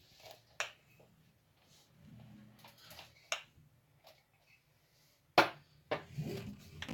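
A few sharp, separate clicks and knocks of handling noise, about four in all, the loudest about five and a half seconds in.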